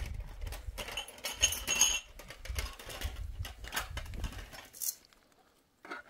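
Clicks and rustles of a meal eaten by hand: flatbread being torn and plates handled. A low rumble underneath drops away near the end.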